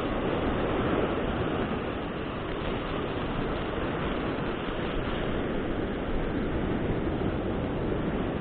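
Steady wash of ocean surf on a beach, with wind noise on the microphone.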